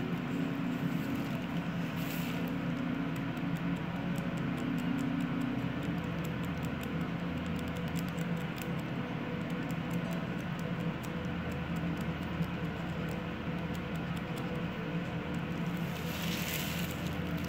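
Permanent-makeup tattoo pen running with a steady hum as its needle works pigment into the skin.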